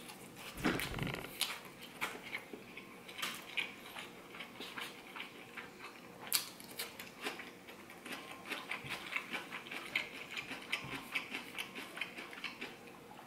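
A person eating and chewing food, with many small irregular clicks and smacks from the mouth and the fork.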